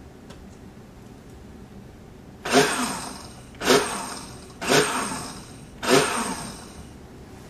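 Hamilton Beach 58184A countertop blender pulsed four times, about once a second. Each pulse starts sharply as the motor spins the blade through a thick milky mixture, then winds down and fades.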